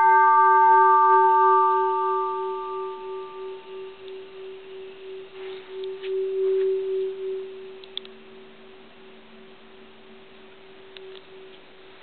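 Mid-1800s Japanese bronze Buddhist temple bell, uncracked, ringing on after a single strike: its higher overtones die away over the first few seconds, leaving a low hum that pulses, swells again about halfway through and then fades to faint.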